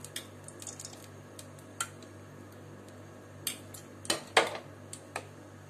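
A metal spoon clicks and taps against an aluminium pot as spoonfuls of ghee are dropped in to melt: about ten scattered sharp ticks, the loudest a little past the middle, over a steady low hum.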